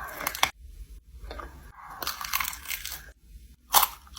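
Close-up crunching of crispy fried chicken skin being bitten and torn, in several irregular bursts, the loudest near the end.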